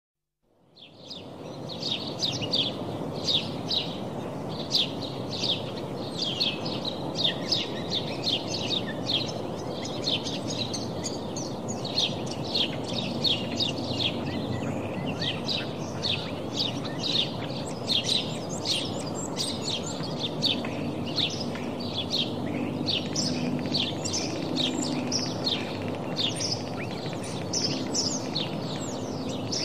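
A flock of small birds chirping continuously, with short high downward chirps several a second, over a steady low background noise. The sound fades in over the first second or so.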